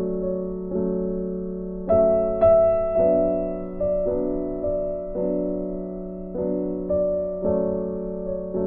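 Background piano music: slow, gentle chords and notes struck about once a second, each left to ring.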